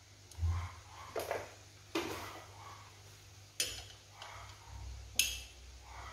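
Chopsticks and a metal utensil knocking against a stainless steel cooking pot while a whole bird boiling in it is turned: about five separate sharp clicks and clanks, the loudest two a little over halfway through and about five seconds in.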